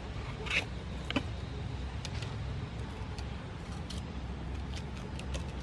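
Small knife slitting sweet peppers open and scraping out their seeds: a few scattered soft clicks and snaps over a steady low rumble.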